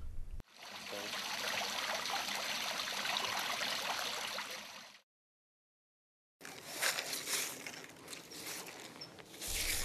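A steady rush like running water that fades out about five seconds in. After a short silence comes the scrape of a broom sweeping debris along a concrete street gutter.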